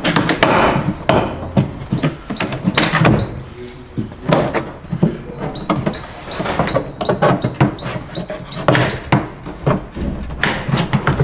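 Plastic tailgate trim panel of a Dacia Duster being pried and tugged off its clips with a plastic trim tool: irregular knocks, clicks and creaks of plastic against plastic.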